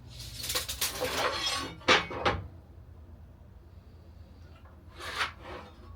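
Shelf being slid into place, scraping and clattering with a sharp knock just before two seconds in, then another short scrape about five seconds in.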